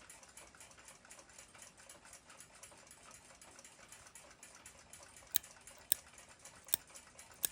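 The still-wound movement of a 1949 German flip clock ticking fast and evenly. Four sharper clicks come near the end.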